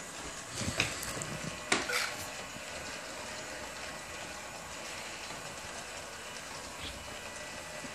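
Homemade robotic wet mop running across a hardwood floor: a steady whirring hiss from its drive motors and wheels, with a few sharp clicks and knocks in the first two seconds.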